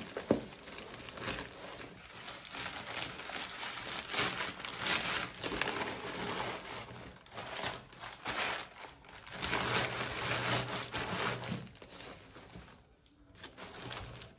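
Clear plastic wrapping crinkling and rustling irregularly as it is handled and crumpled, with a sharp knock just after the start; it dies down near the end.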